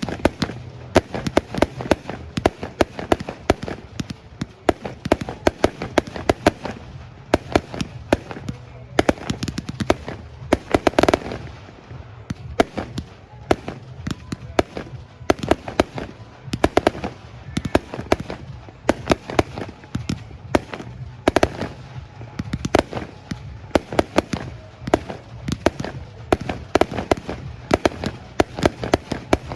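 A fireworks display going off without pause: a dense run of sharp bangs and crackles, several a second, with a few bigger reports among them.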